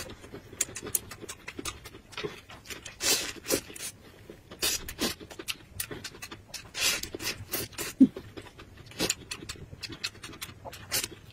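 Eating noises of a person biting and chewing a thin pancake rolled around raw green onion: an uneven string of short wet smacks and clicks of the mouth, with one sharper click about eight seconds in.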